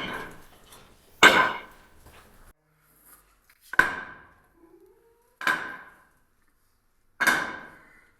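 A series of five sharp knocks, each with a short ringing tail, coming every one and a half to two and a half seconds.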